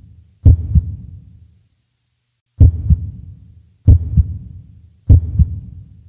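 Heartbeat sound effect: deep double thumps, lub-dub, repeating about every second and a quarter, with one longer pause about two seconds in.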